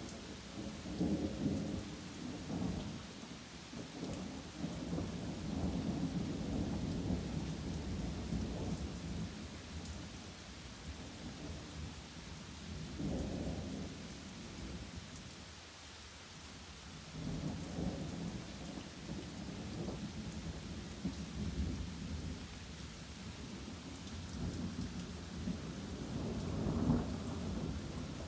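Thunder rolling almost without a break: low rumbles swell and fade several times, easing briefly about halfway through, over a steady hiss of rain falling on trees and ground.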